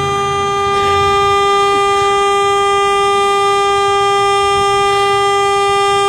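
Car horn held down in one long, unbroken blast at a steady pitch, sounded by a dog leaning on the steering wheel.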